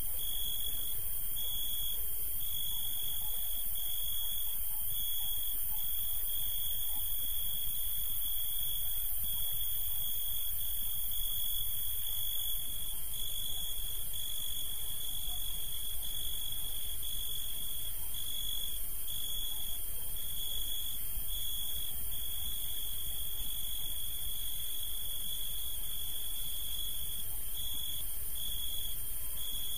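Cricket trilling: one steady high-pitched trill, broken now and then by short gaps, over a constant high hiss.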